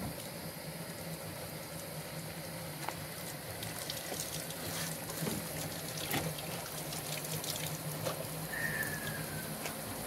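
Water running steadily from the spouts of a public drinking fountain into its stone trough, with a few small splashes and knocks as a man washes under one of the taps.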